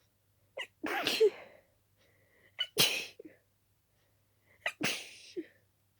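A person sneezing three times in quick succession, about two seconds apart, each sneeze preceded by a short gasp. It is an allergic sneezing fit brought on by dust.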